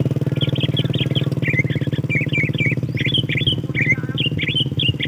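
Sooty-headed bulbul calls: quick bursts of short, bright chattering notes, one after another. Underneath, a small engine runs steadily and is louder than the birds.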